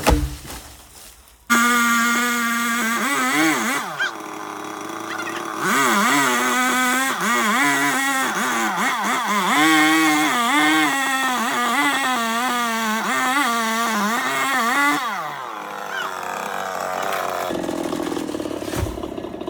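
Chainsaw running, its pitch dipping and rising again and again as it revs and slows under load in the cut. It starts suddenly about a second and a half in and dies away about fifteen seconds in.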